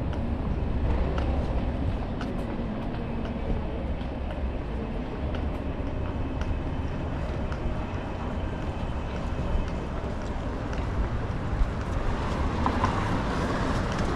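City street ambience: a steady low rumble of traffic, with scattered light clicks and taps.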